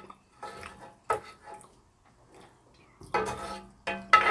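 Eating at the table: short, scattered sounds of chewing and spoons on dishes, with a busier cluster near the end.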